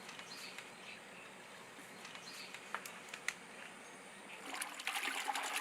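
Faint outdoor background with a couple of light clicks, then water splashing and trickling from about four and a half seconds in, as molasses and effective microorganisms are mixed into fresh water.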